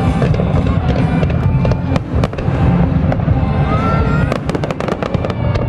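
Aerial fireworks exploding in rapid, repeated bangs and crackles over a continuous low rumble, with music playing underneath; the cracks come thickest about four to five seconds in.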